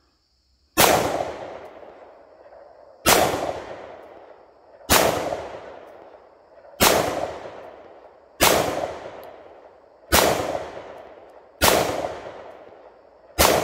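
Glock 43X 9mm pistol fired eight times, slow aimed single shots about one and a half to two seconds apart, each crack trailing off in a short echo. The pistol cycles through the string with no malfunctions.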